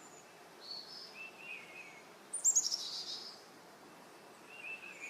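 Birds chirping over a faint steady hiss of outdoor ambience, with a few short calls scattered through; the loudest is a quick run of falling notes about halfway through.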